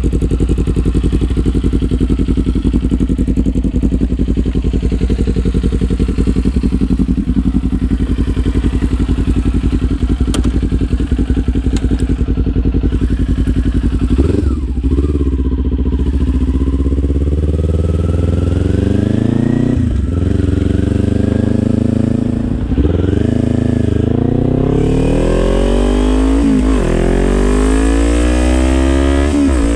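Kawasaki Z400's 399 cc parallel-twin engine breathing through a LeoVince LV-10 slip-on exhaust: it idles steadily for about half the time, then pulls away and accelerates up through several gears, its pitch rising and dropping back at each shift.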